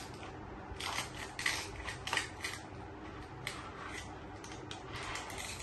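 Small clicks, taps and brief rustles of plastic toys being handled, scattered irregularly.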